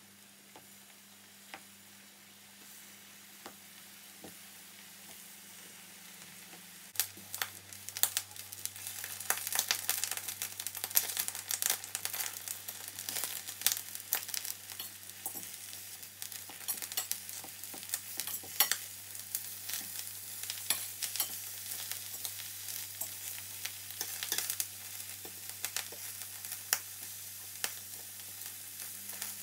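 Eggplant slices frying in oil in a stainless steel pan. The first seconds are quiet with a few light clicks as the slices go in, then sizzling with many sharp crackles and pops starts about seven seconds in and keeps on.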